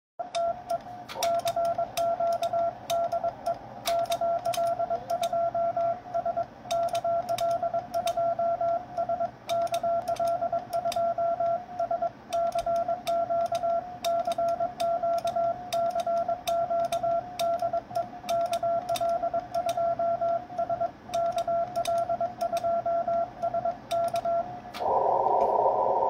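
Morse code CQ call sent on an amateur radio CW transmission, heard as a single beep tone keyed on and off, with sharp clicks along the way. About a second before the end the sending stops and a band of receiver hiss takes over.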